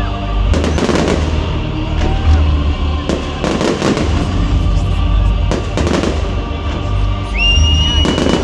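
Festival fireworks display: aerial shells bursting in a run of sharp bangs, some in quick pairs, over a heavy low rumble. A high steady whistle comes in near the end.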